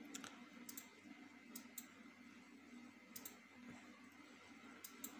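Faint computer mouse clicks, coming in quick pairs about every second and a half, over quiet room tone.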